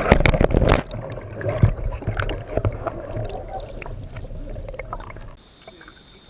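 Water splashing and gurgling, heard muffled as the GoPro is dunked underwater, with a burst of loud splashes in the first second. The high drone of cicadas is cut off while the camera is under and returns about five seconds in as it comes back up.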